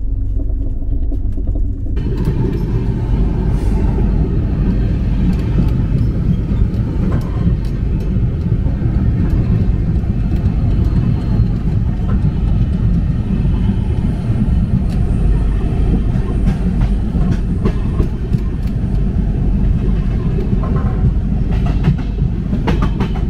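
Passenger train coach running at speed: a steady low rumble with scattered clicks from the wheels on the rails. A hiss joins the rumble about two seconds in.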